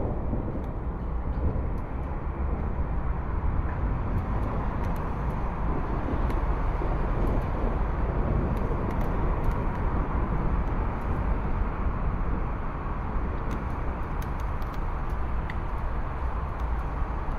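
Thunderstorm ambience: a steady low rumble under a constant hiss, with scattered faint ticks throughout.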